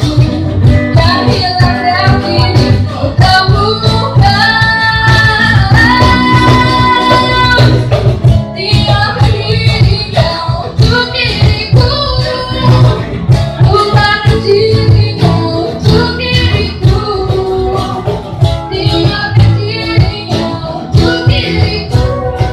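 Indie band music: a sung vocal line over guitar and drums with a steady beat.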